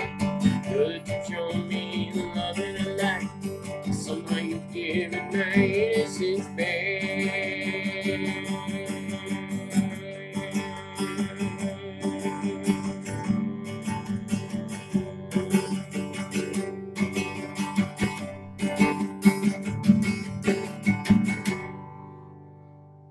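Acoustic guitar strummed steadily as the song's instrumental outro, stopping about a second and a half before the end with the last chord left ringing and fading.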